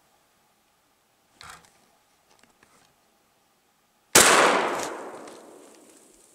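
A single gunshot from a hunting gun, about four seconds in, echoing through the forest and fading over about two seconds; it is a shot at a hazel grouse that hits the bird.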